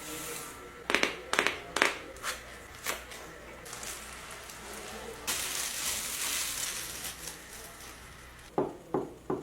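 Handling noise: a quick series of light clicks and knocks, then a steady rustling hiss, then three more clicks near the end.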